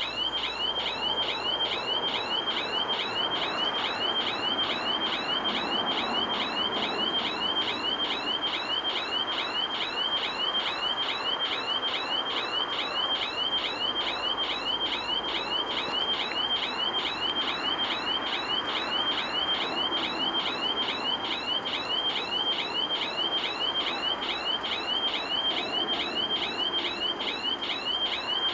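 Railroad level-crossing warning bell ringing continuously with rapid, evenly repeated strokes, the signal that a train is approaching.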